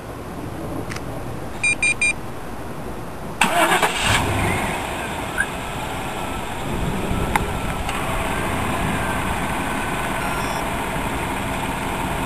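1999 GMC Suburban started by remote. Two short beeps sound about two seconds in, then the starter cranks briefly at about three and a half seconds, and the engine catches and settles into a steady idle.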